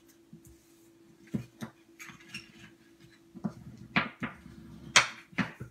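Cardstock being handled and creased, with a bone folder swept over the folds: a run of short paper scrapes and taps, the sharpest about five seconds in.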